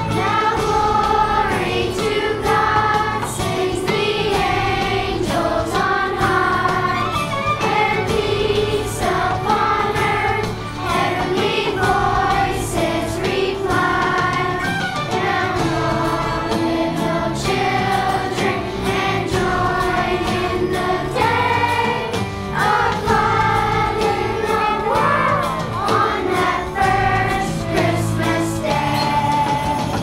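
Children's choir singing with instrumental accompaniment.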